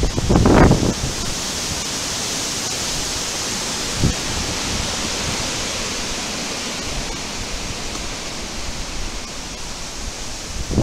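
Storm wind making a steady rushing hiss through woodland trees. In the first second a gust buffets the microphone with a low rumble, and about four seconds in there is a single thump.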